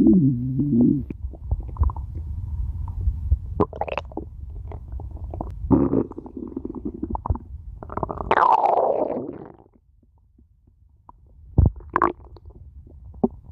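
A person's stomach growling and gurgling. It opens with a pitched growl that drops in pitch within the first second, followed by scattered gurgles and small squelching clicks, a longer gurgle about eight seconds in, and a brief lull near the end.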